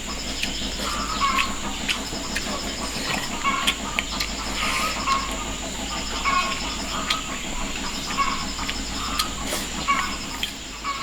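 An animal call repeating about once every second and a quarter, over a steady high hiss, with scattered light clicks.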